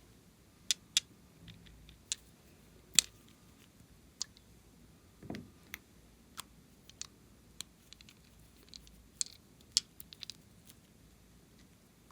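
Slime being worked by hand, giving irregular sharp clicks and pops, with one softer squish about five seconds in.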